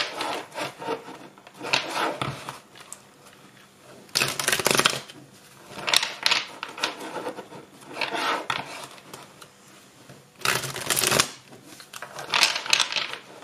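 A deck of tarot cards being shuffled by hand: short bursts of cards riffling and slapping together, about every one to two seconds.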